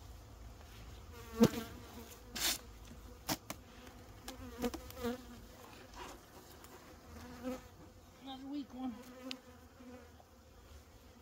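Honeybees buzzing around an opened hive, single bees flying close with a hum that rises and falls in pitch. Several sharp knocks and clacks from wooden hive frames and boxes being handled, the loudest about a second and a half in.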